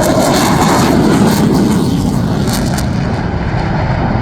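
F-15 fighter jets passing low with afterburners lit: loud, rumbling jet noise with crackling, the high hiss fading after about three seconds as they go by.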